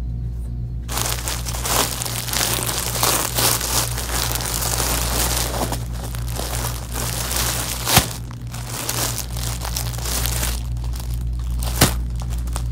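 Clear plastic garment bags crinkling and rustling as bagged clothes are handled and stacked, starting about a second in, with two sharp clicks, one a little past the middle and one near the end.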